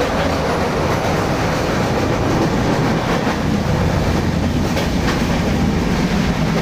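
Passenger train running along the track, heard from the carriage's open door vestibule: a loud, steady rumble of the wheels on the rails with a few faint clicks.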